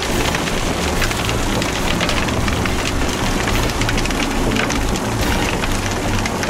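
Railway ballast stones crackling and rattling as the plough attachment of an Atlas road-rail excavator pushes through them, with the machine's engine running steadily underneath.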